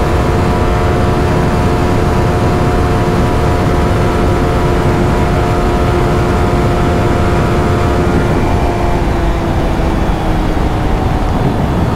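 Motorcycle engine held at a steady high-revving note at top speed, under heavy wind rush. The engine's pitch sags slightly in the last few seconds as it eases off.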